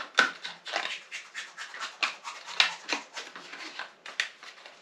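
Packaging rustling and crinkling in quick, irregular scrapes and clicks as a tool accessory is unpacked by gloved hands.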